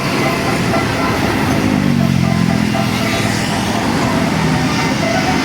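A large bus's diesel engine drone passing close by over steady road traffic noise. The engine's low hum drops a little in pitch as it goes past, then holds.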